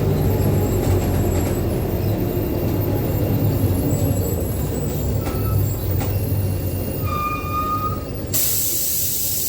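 Ikarus IK 161 bus's MAN D2866 diesel engine running with a low rumble, a brief high squeal about seven seconds in, then a sudden loud hiss of released compressed air near the end.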